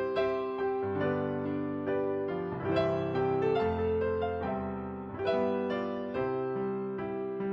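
Slow, gentle piano or keyboard music: sustained chords changing every second or so, with a melody on top.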